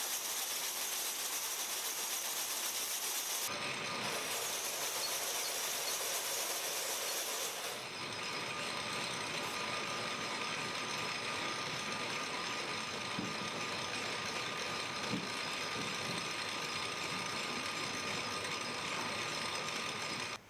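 Steady mechanical running noise with faint even tones, changing in character abruptly about three and a half and eight seconds in.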